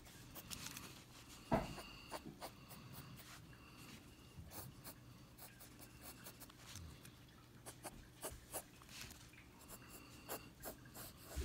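Pencil scratching on sketchbook paper in many short, quick strokes, faint, with one louder tap about a second and a half in.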